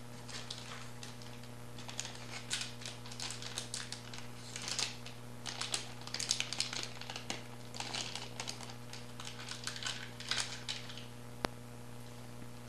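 Plastic packaging bags crinkling and rustling as they are handled, in irregular crackly bursts, with one sharp click about a second before the end.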